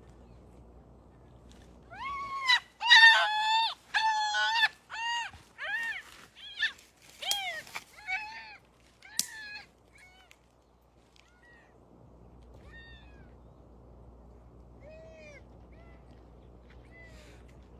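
Young goat bleating in distress as a Komodo dragon attacks it: a quick series of high, wavering bleats starting about two seconds in, loudest at first and dying away by about ten seconds, with a few faint bleats later.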